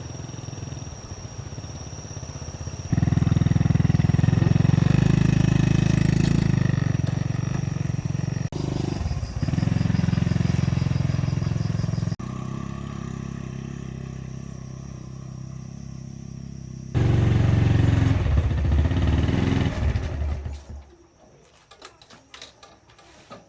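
Small engine running under load, getting louder about three seconds in, with sudden jumps in level. It dies away near the end, leaving a few light clicks.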